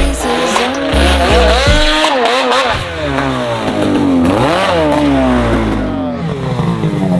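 Snowmobile engine revving, its pitch rising and falling again and again.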